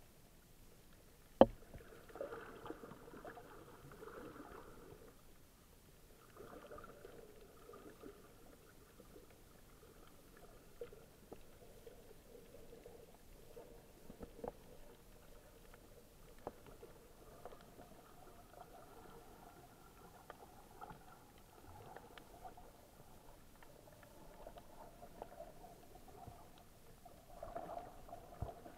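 Muffled underwater sound recorded through a camera's waterproof housing: a low, shifting water murmur with scattered faint clicks, and one sharp knock about a second and a half in.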